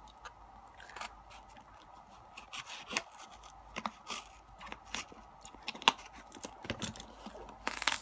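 A knife blade cutting and scraping through packing tape and cardboard on a small parcel, in short irregular strokes and clicks. Near the end the cardboard is torn back, a louder rustling tear.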